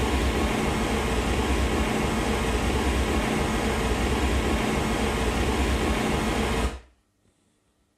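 Test noise from the REW signal generator played through the home-theatre loudspeakers as the test signal for a room frequency-response measurement. It runs steadily and loud, heaviest in the bass, then cuts off suddenly about seven seconds in.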